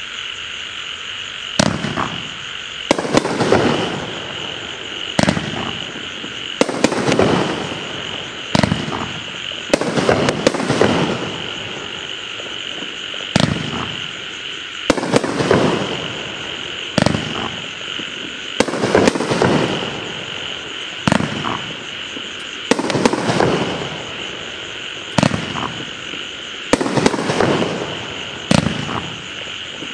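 A 500-gram, 27-shot consumer firework cake firing shot after shot. Each sharp bang comes every second or two and trails off over about a second. A steady high-pitched chorus runs underneath.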